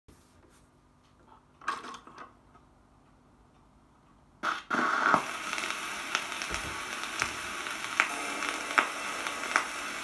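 Stylus of a Stereo RG5 (Nevsky stereo) radiogram set down on a spinning record: a few faint clicks, then a loud click of the needle landing about halfway through, followed by steady surface hiss and crackle from the lead-in groove, with a sharp tick repeating a little under once a second.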